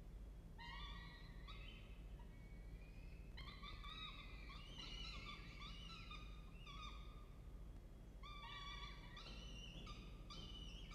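Peregrine falcon chicks giving faint, high-pitched begging calls while being fed, in three bouts of quick repeated notes, over a steady low hum.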